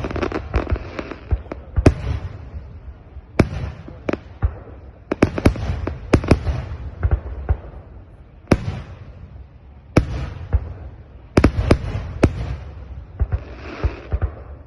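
Aerial fireworks display: shells bursting with sharp bangs, often several in quick succession, with a low rumble carrying on between them.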